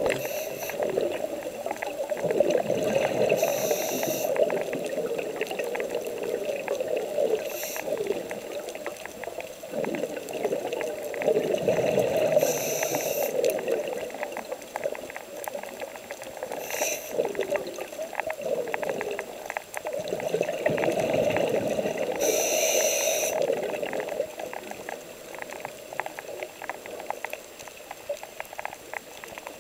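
A scuba diver breathing through a regulator, heard through the camera's underwater housing. Exhaled bubbles rush and gurgle in long swells roughly every nine seconds, with brief high hisses from the regulator, over a faint steady crackle.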